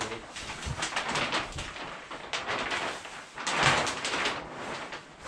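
Large polyethylene vapor-barrier sheet rustling and crinkling as it is pulled and shaken out over a floor frame, loudest about three and a half seconds in, with a few dull thumps.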